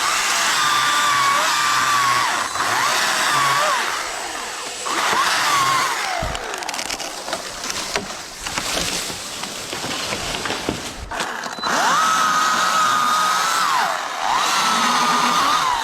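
Chainsaw running at high revs, its pitch dipping and recovering again and again as it bites into the wood. In the middle it runs rougher and lower for several seconds before climbing back to a steady high whine.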